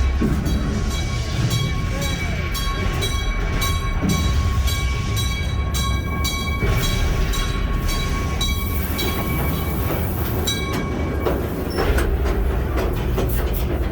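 Mine-train ride cars rumbling and rattling along their track, with a steady high whine that stops about eleven seconds in.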